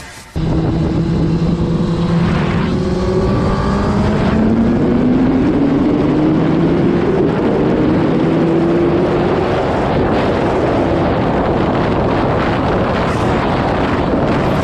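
Suzuki GSX-R1000 sportbike's inline-four engine heard onboard at speed, cutting in abruptly about half a second in. Its note rises steadily as the bike accelerates through a gear, under heavy wind rush over the microphone that takes over after about nine seconds.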